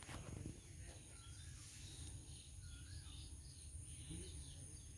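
Faint outdoor ambience: birds chirping now and then over a steady high-pitched insect drone, with a low rumble underneath.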